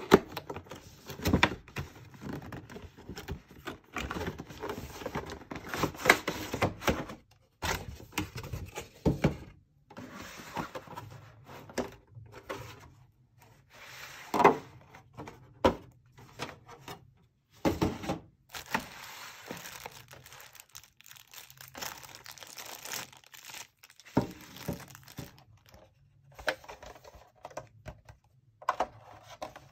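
Handling noise from unboxing a gaming headset: the cardboard box being opened, black plastic packaging trays lifted out and set down with knocks, and the clear plastic bag around the headset crinkling. It comes as irregular short rustles, tears and thunks with brief pauses.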